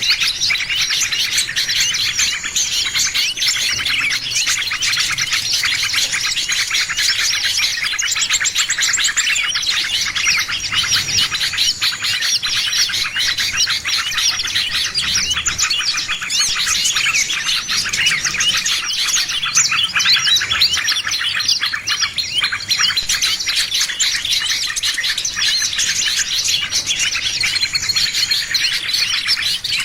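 Dense chorus of many small songbirds chirping and twittering without pause, fast overlapping high calls, as used in a lure recording for attracting small birds.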